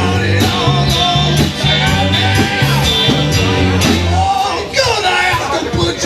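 Rock-and-roll band playing, with a pulsing bass line under a bending guitar or vocal line and a falling pitch glide about five seconds in.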